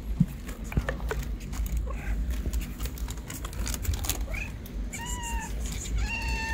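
A tabby-and-white stray cat meowing three times in the second half, the last call longer and running on, begging for food. A low steady rumble lies underneath.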